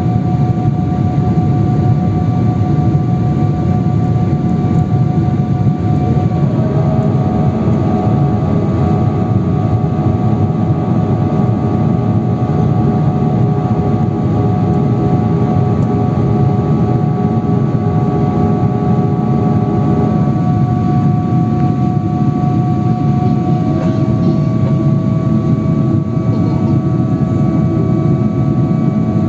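Jet airliner engines heard from inside the cabin in flight: a loud, steady rumble and rush of air, with a high whine on top that shifts slightly in pitch a few times.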